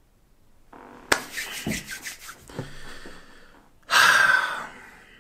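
A man's breathing close to the microphone: faint rustling and a breath drawn in from about a second in, then a loud, hard exhale near four seconds that fades away.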